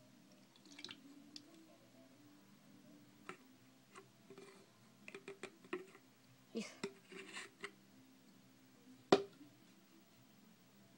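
Small objects being handled: scattered light clicks, taps and rustles, with one sharp knock about nine seconds in, over a faint steady hum.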